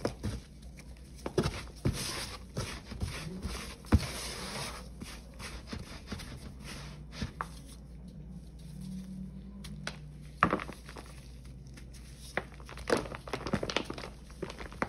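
Dried paste balls of Ajax cleanser powder mixed with Pine-Sol and Palmolive crunching and crumbling in gloved hands, with the soft hiss of powder being rubbed and sifted in a plastic tub. Sharp crackles come in clusters, with a quieter stretch in the middle.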